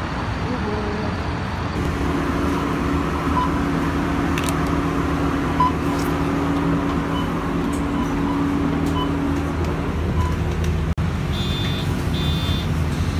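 Inside an articulated city bus on the move: the engine and road noise make a steady drone with a low hum. Near the end come two short electronic beeps.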